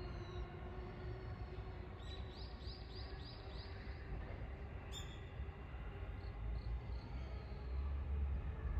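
A bird calling: a quick series of about six high, repeated notes about two seconds in, over a steady low outdoor rumble that swells near the end. A single sharp click about five seconds in.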